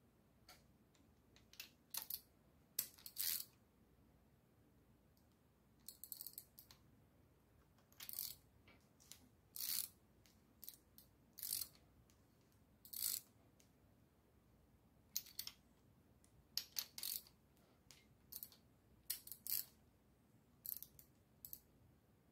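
Ratchet wrench clicking in short bursts with pauses between them as it turns the rocker arm adjusting nuts, setting the valve lash on hydraulic lifters.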